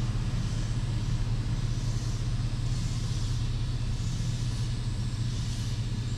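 Steady low rumble and hiss of a car driving along a road, engine and tyre noise heard from inside the cabin.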